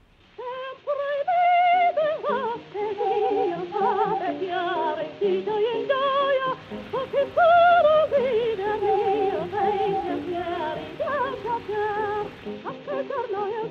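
Soprano singing sustained notes with a wide vibrato, from an early recording with little treble.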